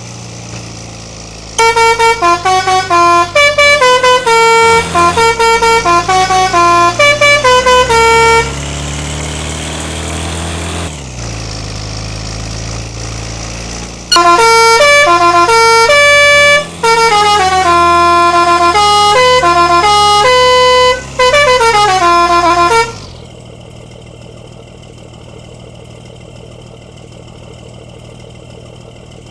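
Bus 'telolet' multi-tone musical horn playing quick melodies of stepping notes in two long runs, over the bus's engine running steadily. The horn stops about 23 s in, leaving the engine idling.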